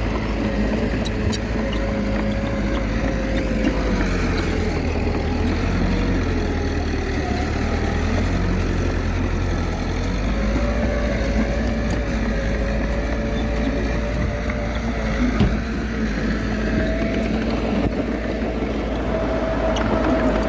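Komatsu D21A bulldozer's diesel engine running steadily under working load, with a whine that wavers up and down in pitch.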